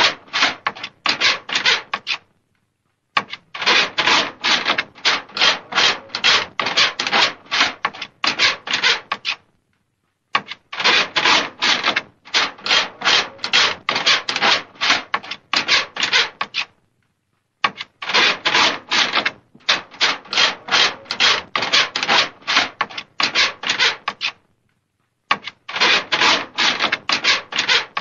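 Scratching at a door: quick rasping strokes, about three a second, in bouts of several seconds broken by four short pauses.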